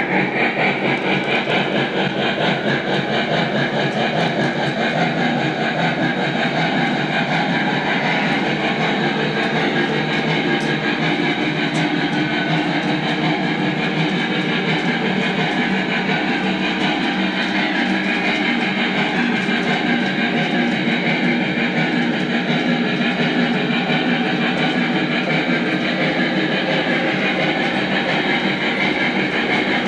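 Lionel Legacy Norfolk & Western Y6b 2-8-8-2 O-gauge model steam locomotive running on three-rail track. A steady rolling clatter of wheels on rail mixes with the locomotive's onboard steam sound effects.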